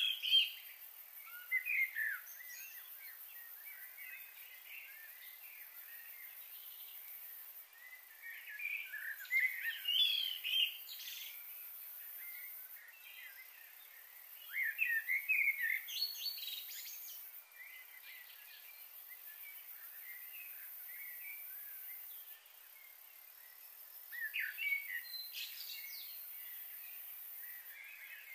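Songbirds chirping and singing outdoors in short bouts of a few seconds each, four bouts in all, over a steady faint high-pitched hiss.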